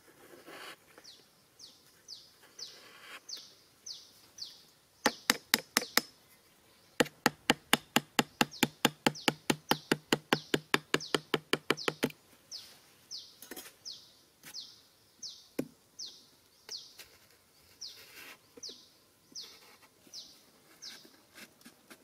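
A knife blade knocking rapidly against a cardboard lid: a short run of sharp knocks, then a longer even run of about six a second lasting some five seconds. A bird keeps calling through the rest with short falling chirps, roughly one a second.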